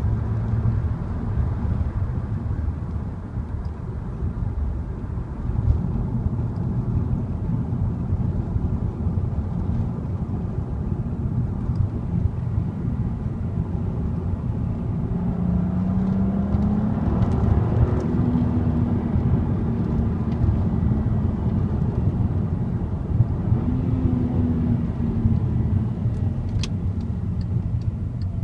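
Volkswagen Passat R36's 3.6-litre VR6 engine running under way with steady road noise, its note rising in pitch about halfway through and briefly swelling again near the end.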